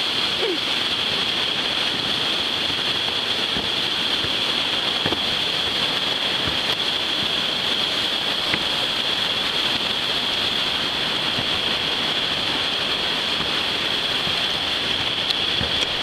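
Steady, loud rush of white-water river rapids below a wooden footbridge, with a few faint knocks from the planks underfoot.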